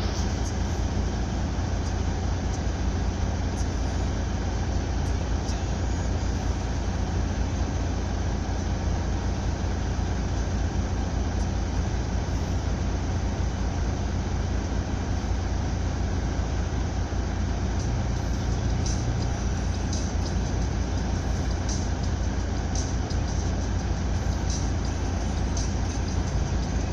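Steady low drone of a car ferry under way: the ship's engine rumbling unchanging, with a constant rush of wind and water over it.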